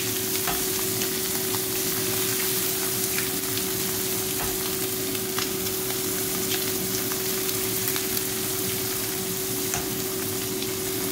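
Diced salami and eggs frying in a little oil in a nonstick skillet, a steady sizzle, with a few faint clicks and a low steady hum underneath.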